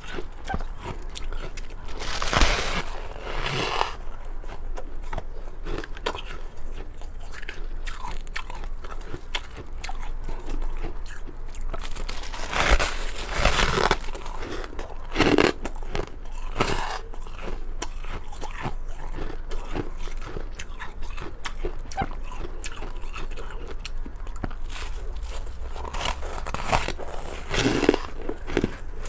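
Close-up biting and chewing of crunchy freezer frost: a steady crackle of small crunches, with louder bites now and then.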